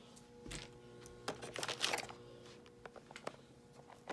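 Scattered light clicks and rustling of small objects being handled, with a cluster of them about a second and a half in. A faint steady hum sits underneath.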